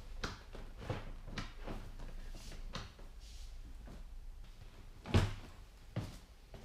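Handling noises from a swivel boat seat on its mount: light knocks and rubbing, with one louder thump about five seconds in and a smaller knock just after.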